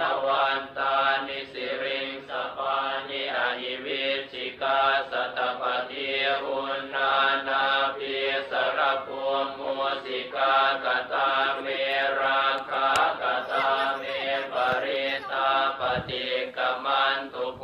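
Buddhist chanting in Pali: voices reciting together in a steady, even syllable-by-syllable rhythm without pause.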